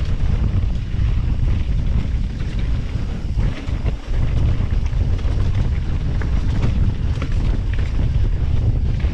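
Wind buffeting the camera microphone on a mountain bike descending at about 30 km/h, with scattered clicks and rattles from the tyres and bike over a rocky dirt trail.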